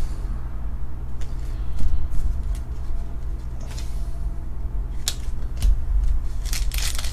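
Panini Fortnite trading cards being flicked and slid one behind another by hand, giving scattered soft snaps and rustles, with a denser burst of card rustling near the end. A steady low hum runs underneath.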